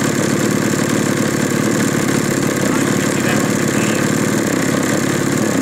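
Two-stroke chainsaw engine (a GL5200M) mounted in a large model aircraft, running steadily on the ground with its propeller spinning.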